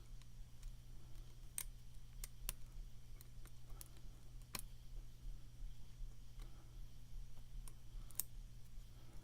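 Faint, irregular clicks of a lock pick working the pins of a pin-tumbler challenge lock, the loudest about halfway through and near the end, over a steady low hum.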